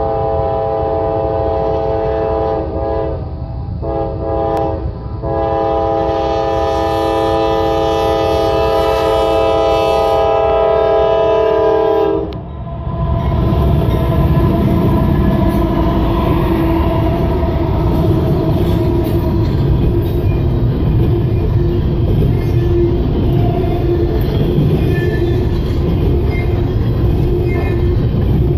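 Norfolk Southern freight locomotive's multi-chime air horn blowing for a grade crossing: two short breaks near the start, then one long blast that stops about twelve seconds in. The lead diesel locomotives then pass, followed by the steady rumble and clatter of double-stack container cars rolling over the rails.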